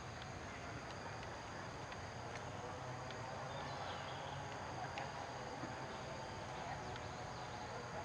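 Steady high-pitched drone of insects, two even tones held throughout, over a low outdoor murmur, with a few faint short chirps.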